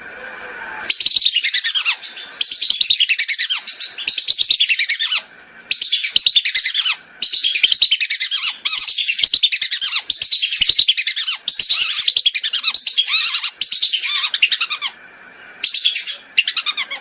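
Whistling ducks (belibis) calling in the loud lure-call recording used to attract them: about a dozen bursts of rapid, high, falling whistled notes, each lasting about a second, with short pauses between.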